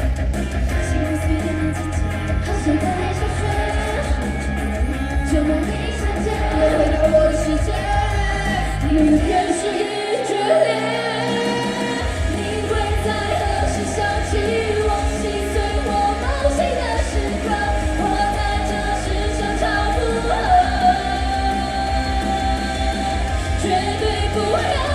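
Pop-rock song with singing, played live at concert volume. The deep bass cuts out for about two seconds near the middle, then comes back in.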